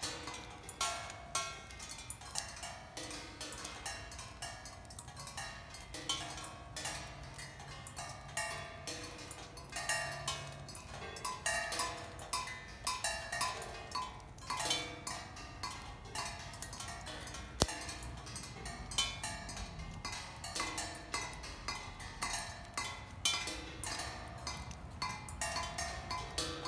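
Raindrops striking several patinated cymbals, pinging irregularly with short metallic rings at a few different pitches. One sharper click stands out about two-thirds of the way through.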